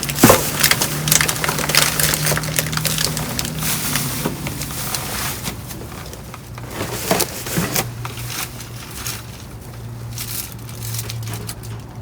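Rummaging through trash in a dumpster: plastic bags and packaging crackling and crumpling, with irregular knocks and clatters of items being shifted, busiest in the first few seconds. A steady low hum runs underneath.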